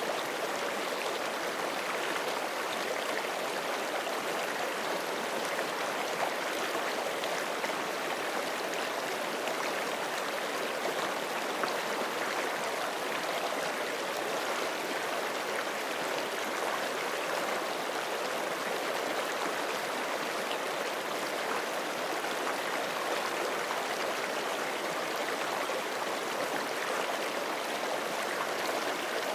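Forest creek flowing over rocks: a steady, unbroken rush and babble of running water.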